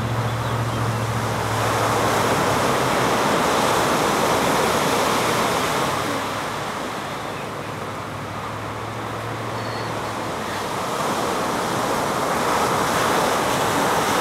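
Ocean surf breaking and washing up the beach in a steady rush that swells over the first few seconds, eases in the middle, then builds again near the end.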